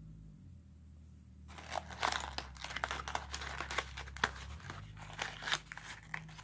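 Paper liner inside a freshly opened pipe-tobacco tin being unfolded and handled, crinkling and crackling irregularly; the crackling starts about a second and a half in.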